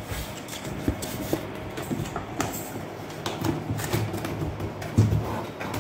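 Cardboard packaging being handled: scattered knocks, scrapes and rustles as box flaps and inserts are moved, with a louder knock about five seconds in, over a steady low hum.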